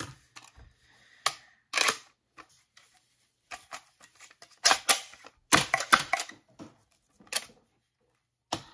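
High-pressure-air Nerf blaster with a solenoid valve firing foam darts: short sharp pneumatic pops, single shots spread out with a quick run of several shots a little past halfway.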